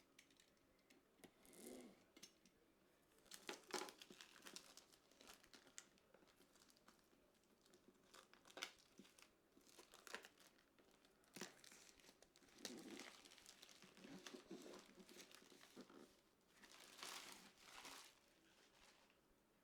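Faint crinkling and rustling handling noises with scattered sharp clicks, coming and going irregularly.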